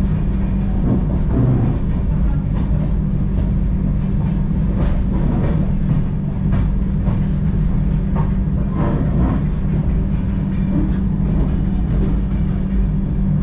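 Passenger train running along the track, heard from inside the coach: a steady low rumble with scattered sharp wheel clacks over the rails.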